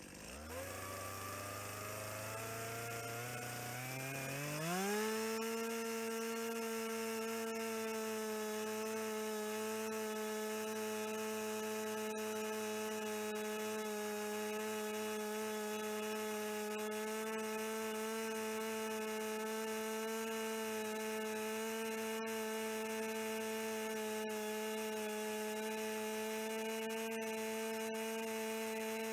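A motor whining as it spins up in steps over about five seconds, then running at a steady, constant high speed.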